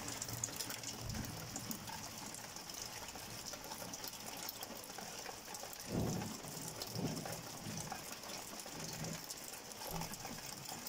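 Steady rain falling in a night thunderstorm, a hiss with many small ticks of drops, heard through an open window. A few faint low rumbles come about six and seven seconds in.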